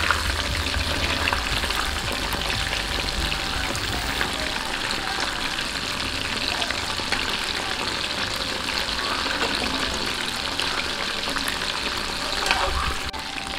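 Batter-coated chicken pieces deep-frying in hot oil: a steady, dense sizzle and crackle, with a slotted metal spoon stirring the pieces through the oil.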